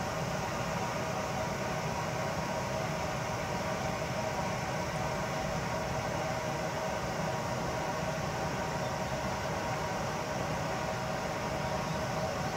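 A steady mechanical hum with an even hiss, unchanging in level and holding a few constant tones.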